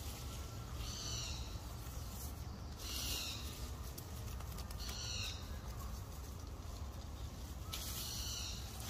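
An animal's short high-pitched calls, four in all, about two to three seconds apart, each sliding slightly down, over a steady low hum.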